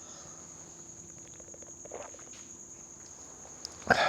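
Crickets chirping in a steady, continuous high trill, with a few light clicks about two seconds in.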